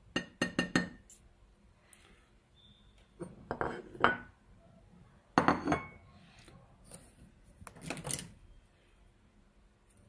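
White porcelain palette dishes clinking and knocking on a wooden table as they are picked up and set down, in four short spells of clicks a couple of seconds apart.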